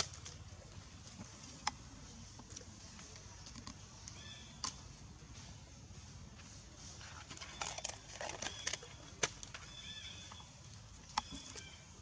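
Outdoor ambience: scattered sharp clicks and crackles, a cluster of them past the middle, with two short high-pitched squeaks, over a low steady hum.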